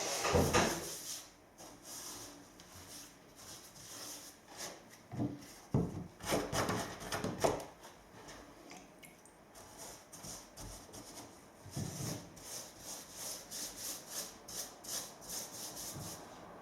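Something rubbing on timber by hand in uneven strokes, with a quicker run of short strokes, about three a second, in the last few seconds.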